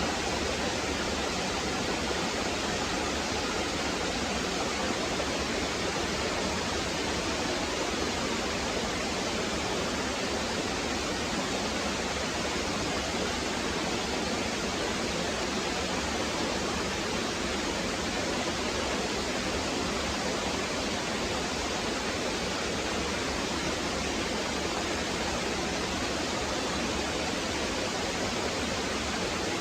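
Small waterfall splashing down over rock, a steady even rush of falling water.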